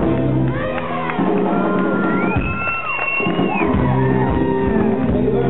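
A live rock-and-roll band ends its song about a second in, and an audience cheers with long, high whoops.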